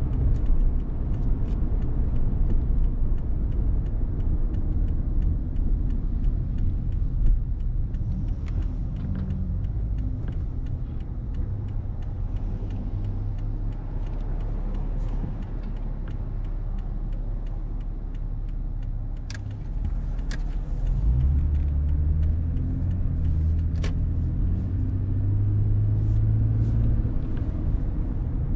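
Car driving, a steady low rumble of engine and tyres on the road. It eases off through the middle and builds again about three-quarters through as the car gathers speed, with a few faint clicks.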